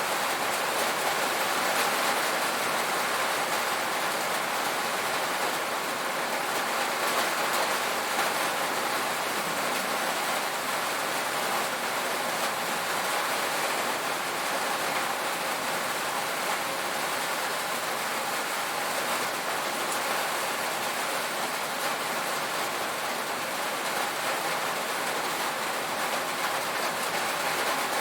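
Steady heavy rain drumming on a tin roof, a dense even patter of drops on sheet metal.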